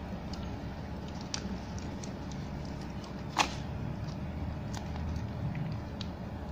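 Scattered light crinkles and clicks of a thin plastic bag being pressed and handled by fingers, with one sharper click about three and a half seconds in, over a steady low hum.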